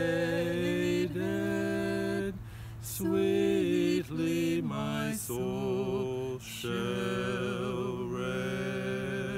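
A man and a woman singing a slow hymn together, unaccompanied, in long held notes with short breaks between phrases.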